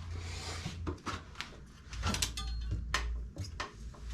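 A brief scrape, then a string of sharp clicks and knocks as an e-bike's fat-tire wheel is worked free of the frame.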